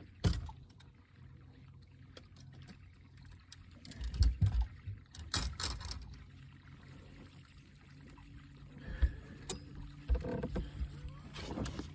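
Scattered knocks and clunks of fishing gear being moved about and set down in a small boat, bumping the hull, over a faint steady low hum.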